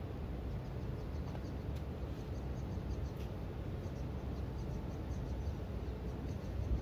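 Outdoor ambience: a steady low rumble with faint, short, high chirps repeating through it.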